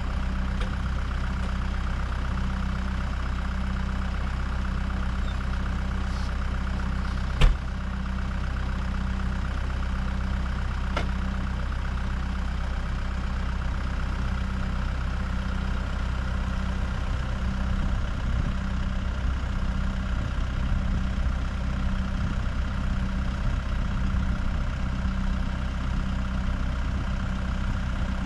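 An engine idling steadily, with one sharp knock about seven seconds in.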